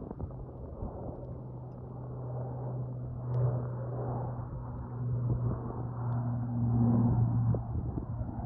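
Four-engine turboprop of a low-flying C-130 Hercules: a steady low drone that grows louder over the first seven seconds as the aircraft approaches.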